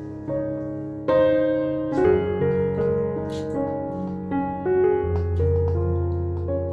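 Background piano music: a slow melody of held notes over sustained low chords.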